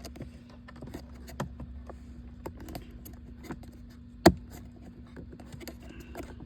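Plastic dash trim being handled and pressed into place: scattered light clicks and taps, with one loud sharp snap about four seconds in as a clip seats, over a steady low hum.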